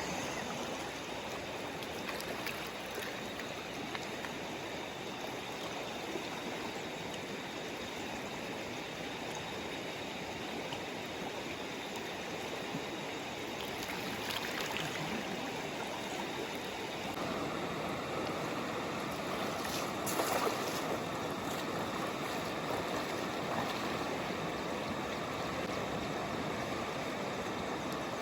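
River water rushing steadily over stones, a continuous even noise that grows a little fuller about two-thirds of the way through.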